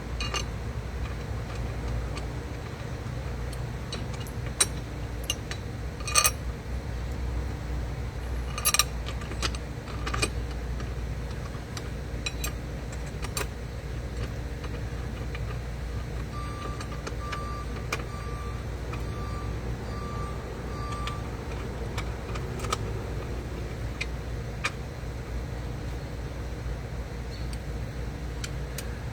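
Sharp metallic clicks and clinks of bolts, spacers and an Allen key being handled while a saddlebag mounting bracket is bolted onto the motorcycle, a few seconds apart and mostly in the first half, over a steady low hum.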